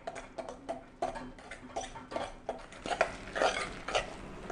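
Spoon or fork stirring a thick, wet batter of grated zucchini, egg and corn flour in a bowl, in quick even strokes about four a second with light clicks against the bowl.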